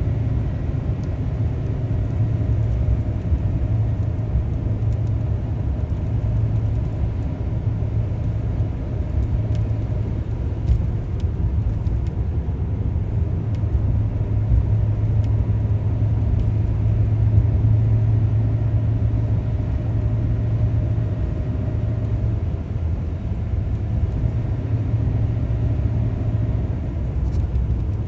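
Steady low rumble of a car driving, engine and road noise continuous without letting up.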